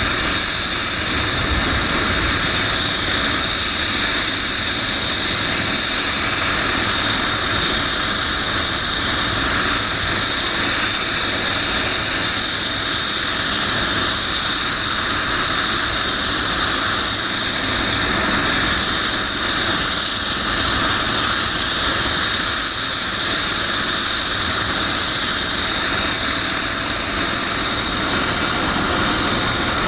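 Eurocopter EC135 twin-turbine helicopter running steadily: a high turbine whine over a loud rushing noise, with no change in pitch or level.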